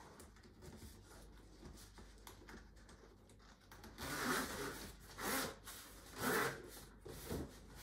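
A zipper on a stroller's canopy pulled in three short strokes, starting about four seconds in, as the sun flap is zipped on; before that only faint handling of the fabric.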